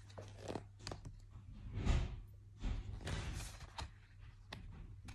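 Soft handling noises, a few light knocks and rustles, the loudest about two seconds in, over a steady low electrical hum.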